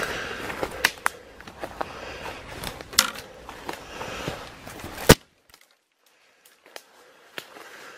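Forcing a way through dense, overgrown undergrowth: leaves and branches rustling and scraping, with frequent sharp snaps and crackles of twigs. After a loud crack about five seconds in, the sound drops out almost completely for about two seconds.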